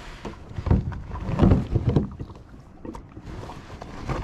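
A bag being fetched and handled in a kayak: a few dull thumps with rustling in the first two seconds, then quieter handling.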